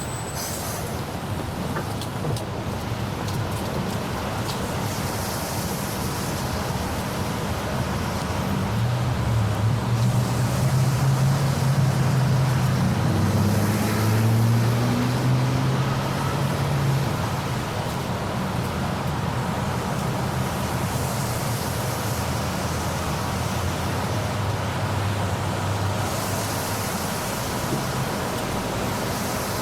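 Road traffic noise: a steady wash of passing vehicles, with one engine's low hum growing louder in the middle and then fading away.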